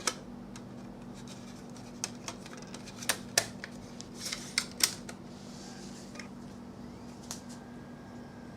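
Scattered sharp clicks and taps of small plastic hardware being handled, the strongest in a cluster about three to five seconds in, over a steady low hum.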